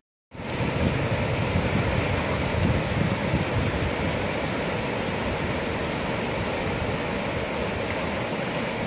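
Steady rush of ocean surf on a rocky shore, starting just after a brief silence at the very beginning.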